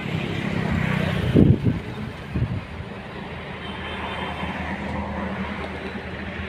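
A motor engine running steadily, with a couple of louder short bursts about one and a half and two and a half seconds in.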